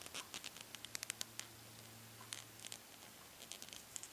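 A 4.0 mm crochet hook working yarn by hand, making the slip stitch that closes a chain into a ring: faint rustling and small ticks as the yarn drags over the hook, in quick clusters over the first second and a half and twice more later.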